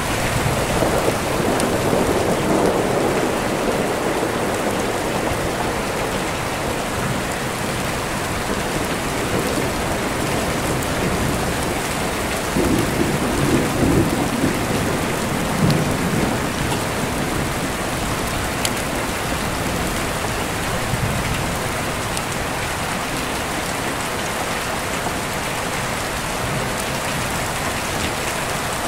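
Steady rain with deep rolling thunder, the rumble swelling twice: at the start and again about halfway through.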